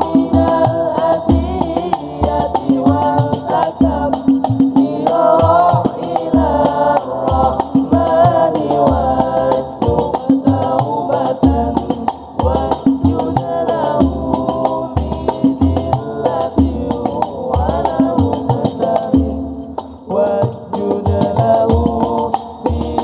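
Al-Banjari hadrah ensemble performing sholawat: several young male voices sing a melodic line in unison into microphones over a steady rhythm of terbang frame drums. There is a short break in the singing near the end.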